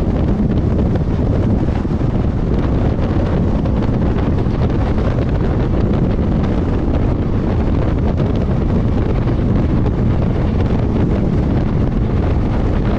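Strong wind buffeting the microphone held outside a passenger train running at speed, over the steady rumble of the train in motion.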